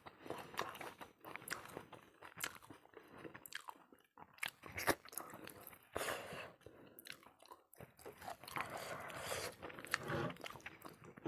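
A person chewing and biting a mouthful of rice and pork-trotter pickle close to the microphone, with irregular crunches, wet mouth clicks and smacks.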